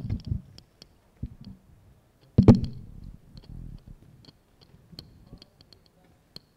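Handling noise on a live microphone: a heavy thump at the start and a louder one about two and a half seconds in, followed by scattered light clicks and knocks.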